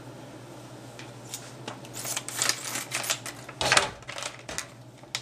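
Scissors cutting open a plastic pouch of dried cranberries: irregular sharp snips, clicks and plastic crinkles, with one louder clack about three and a half seconds in.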